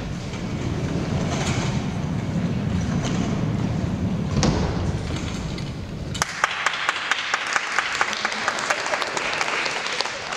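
A low rumble for about six seconds, then audience clapping, with many sharp individual claps standing out until near the end.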